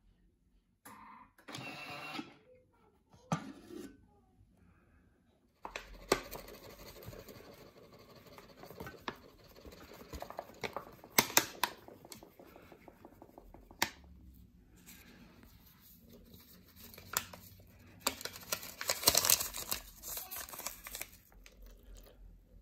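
Paper flour bag rustling and crinkling as flour is tipped into a Thermomix's steel mixing bowl, with scattered sharp clicks and knocks of handling. A couple of short noises come first, then near-continuous rustling from about six seconds in.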